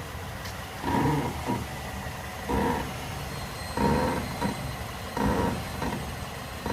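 Repeated creaking from the front driver's-side corner of a 2006 Mazda 6: four creaks about a second and a half apart, over a steady low rumble. The owner places the creak near the driver's side wheel; greasing one bushing did not cure it, and no play was found.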